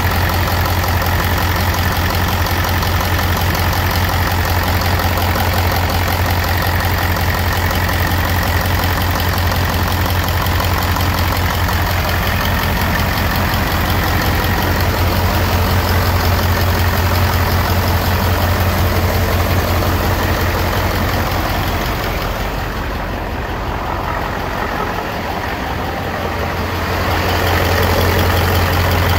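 Mercedes-Benz 2629 K tipper's V8 diesel engine idling steadily, heard close up at the open engine bay. It dips a little quieter and duller for a few seconds near the end, then comes back to full level.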